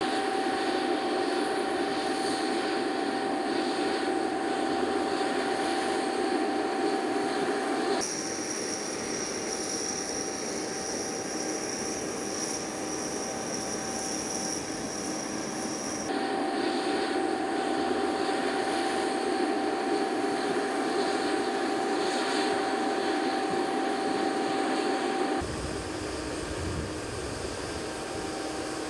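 Steady whine and hum of airfield machinery around a parked E-3A AWACS aircraft, with a constant tone over a noisy drone. The mix shifts abruptly at about 8 and 16 seconds. From about 25 seconds in, a lower rumble takes over.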